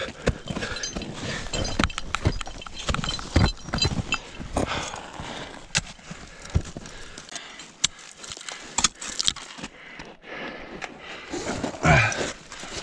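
Ice axe picks and crampon points being struck and kicked into steep snow while climbing: irregular crunching thuds and sharp clicks, several a second.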